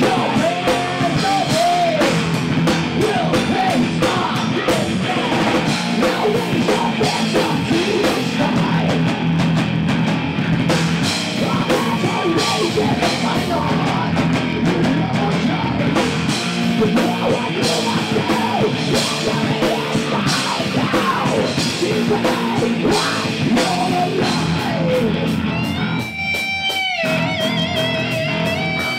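Heavy metal band playing live: distorted electric guitars, bass and a drum kit, with vocals. About 26 s in the drums and low end drop out, and a lone electric guitar plays on.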